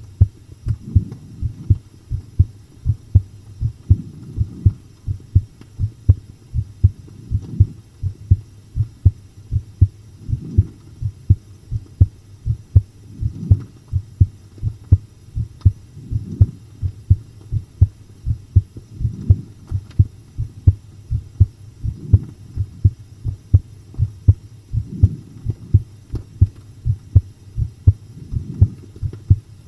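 Human heartbeat recorded up close, a steady, even run of low thumps. A soft low swell comes and goes about every three seconds under the beats.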